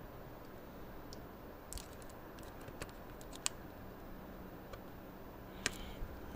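Faint, scattered light clicks and taps of fingers handling a laptop motherboard and its chassis, a few in a row about two seconds in and a sharper one near the end, over low background hiss.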